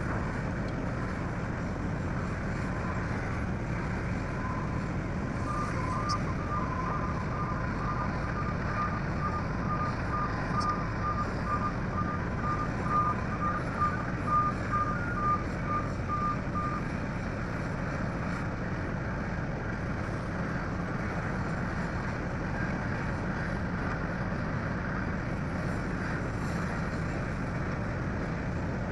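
Heavy diesel machinery running steadily, with a vehicle's reversing alarm beeping about twice a second for roughly eleven seconds, starting several seconds in and then stopping.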